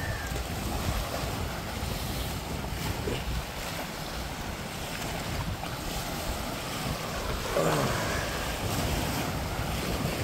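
Small waves washing and breaking over the rocks at the water's edge, with wind buffeting the microphone as a low rumble. One louder, falling whoosh comes about three-quarters of the way through.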